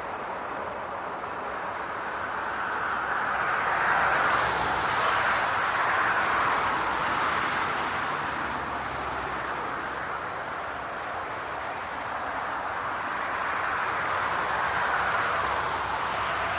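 Rushing vehicle noise that swells and fades twice, about ten seconds apart.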